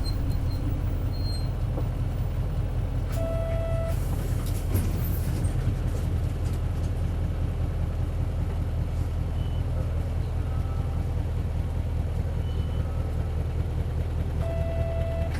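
Isuzu Cubic bus's 8PE1-S V8 diesel engine running steadily. A short electronic beep sounds twice, about eleven seconds apart.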